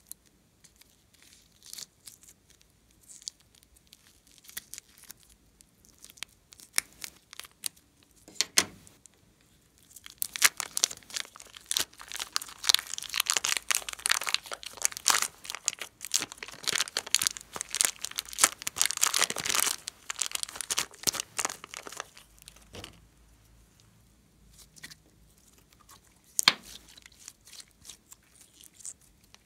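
Plastic piping bag crinkling and crackling as hands squeeze clay out of it and peel it away, densest for about ten seconds in the middle. Before that come scattered light snips and rustles as scissors cut the bag open.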